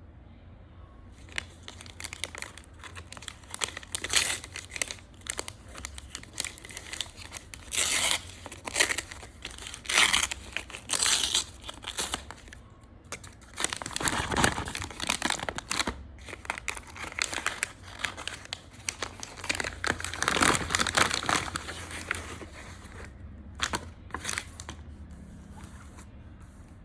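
Packaging crinkling and tearing as it is opened, in irregular bursts of rustling separated by short pauses.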